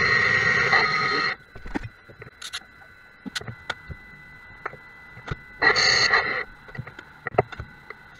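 CNC lathe turning an aluminium cylinder-liner blank, the cut giving a steady high whine that stops about a second in. Then the spindle stands still and only scattered clicks and ticks are heard, with one short noisy burst around six seconds in.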